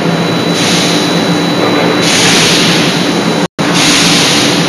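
Steady hum and hiss of forge-shop machinery at a CNC hydraulic die-forging hammer between blows, the hiss swelling about half a second in and again about two seconds in; no hammer blows. The sound cuts out briefly near the end.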